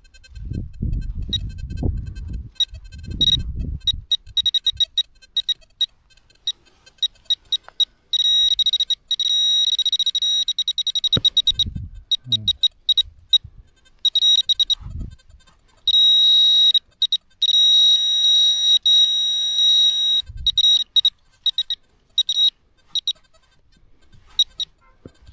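A metal detector's high beeping tone, sounding in short irregular beeps that run together into long continuous tones twice, as it is worked over a buried target. Low dull thumps sound near the start and a few times later.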